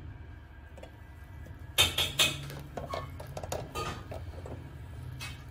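Clatter of an electric roti maker's metal-and-plastic lid being shut: a few sharp knocks close together about two seconds in, then lighter clicks and taps.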